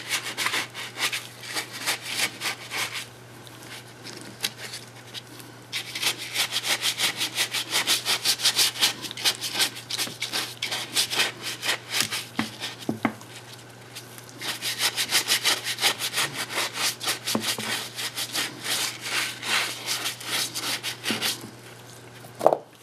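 Stiff paintbrush bristles scrubbing fast back and forth over a papier-mâché coconut shell while dry brushing paint, in rapid strokes several a second, with two short pauses.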